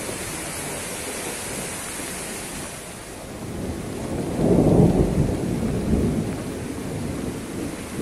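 Strong wind rushing through oil palm fronds, swelling to a louder gust about halfway through and then easing back.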